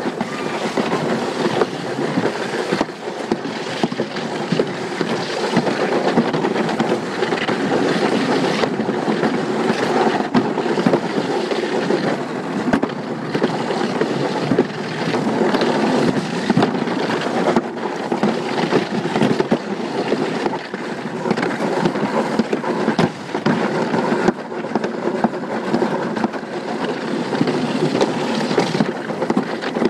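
An alpine slide sled running fast down its concrete track: a steady rolling noise of the sled on the track mixed with wind on the microphone.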